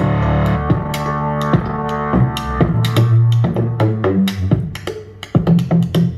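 Music with a strong bass line and drum hits, played through a homemade MDF Bluetooth speaker with two drivers and a bass port. The music drops away briefly about five seconds in, then comes back with a hard drum hit.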